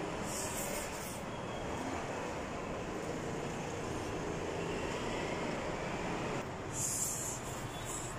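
Instant noodles being slurped into the mouth in a short burst about half a second in, with another brief hissy burst near the end, over a steady background rumble.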